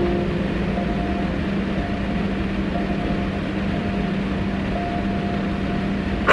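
A steady low drone under an even hiss, with a faint higher tone that comes and goes.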